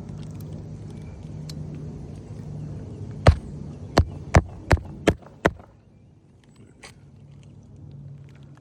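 Six sharp hammer blows about a third of a second apart, a roofing nail being driven to fasten an asphalt shingle back in place, over a steady low hum that drops away after the blows.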